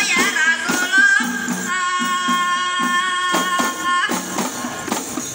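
Rebana frame drums beaten together in a steady rhythm by a procession drum group, with singing over them. One long, steady high note is held from about two seconds in to about four seconds in.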